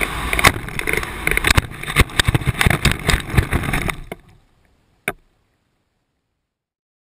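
Onboard audio of a Multiplex Cularis foam RC sailplane touching down: air rushing past, then a run of bumps and scraping as it skids through grass, stopping about four seconds in. A single click comes about a second later.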